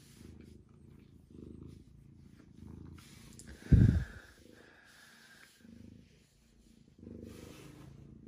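Domestic tabby cat purring while being stroked, in stretches with short breaks between breaths. A loud, short thump a little under four seconds in.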